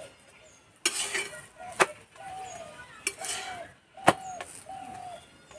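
Steel spatula scraping and clinking against an iron tawa as a paratha is turned over: two short scrapes and two sharp clinks, the loudest as it flips about four seconds in. Doves coo in the background.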